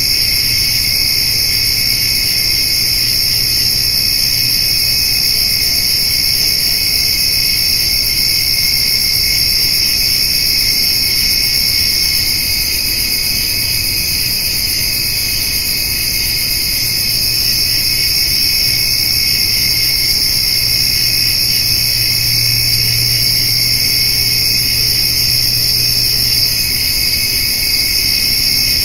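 Summer evening chorus of crickets and grasshoppers: a steady, unbroken shrill trilling at several high pitches at once. A faint low hum runs underneath.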